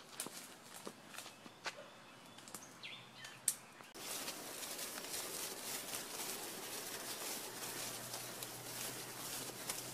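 Outdoor woodland ambience with scattered light knocks and a brief bird chirp; about four seconds in it cuts to a steadier noisy background dotted with small knocks as a saddled horse walks under its rider.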